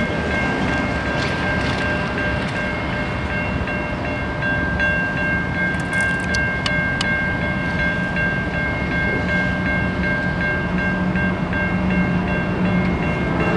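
Railroad grade-crossing warning bell ringing steadily, with the low hum of an approaching Norfolk Southern train building underneath from about a third of the way in.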